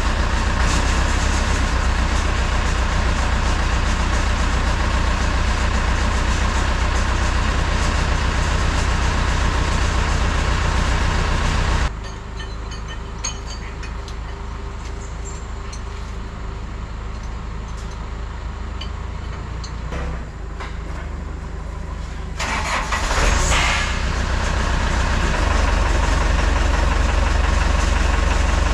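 JCB backhoe loader's diesel engine running. It drops abruptly to a lower level about twelve seconds in, then comes back up about ten seconds later with a short rush of noise.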